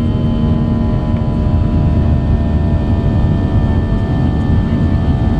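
Boeing 737-800's CFM56-7B turbofan engines heard from inside the cabin beside the wing at climb thrust after takeoff: a loud, steady drone with several steady humming tones over it. A low hum in it fades out about a second in.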